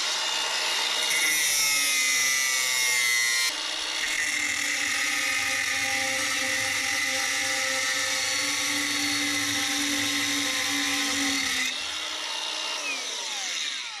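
Cordless Denzel angle grinder with an abrasive cut-off disc, cutting through steel pipe with a loud, steady whine. Near the end the motor winds down, falling in pitch.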